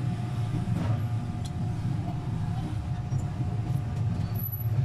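Steady low background hum, with a faint, thin, steady higher tone above it.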